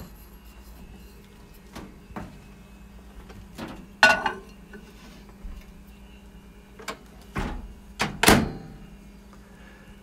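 A Hamilton Beach microwave oven's door is opened with a click, a ceramic mug is set down on the glass turntable, and the door is shut with a thunk about eight seconds in, the loudest knock.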